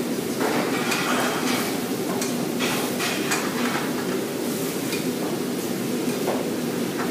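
Metal tongs clinking and scraping against a small metal frying pan as food is stirred and turned, in quick irregular knocks, over a steady low hum.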